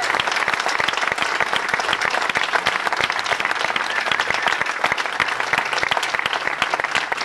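A crowd applauding, many people clapping, easing off slightly toward the end.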